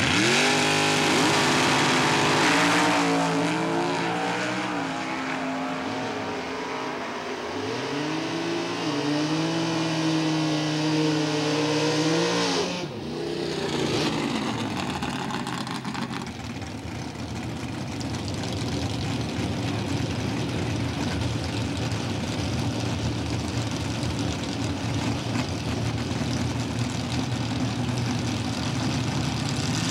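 Super Stock drag car engine launching off the line at full throttle and accelerating down the quarter mile, its pitch climbing and dropping back at each gear shift, then cutting off sharply about 13 seconds in as the throttle is lifted. Steadier engine noise follows for the rest.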